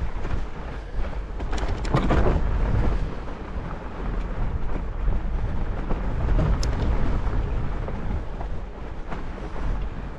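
Riding noise from a Salsa Bear Grease fat bike on a snowy trail: a steady low rumble of wind on the microphone and tyres rolling over snow, with a few sharp clicks and knocks from the bike about two seconds in and again near seven seconds.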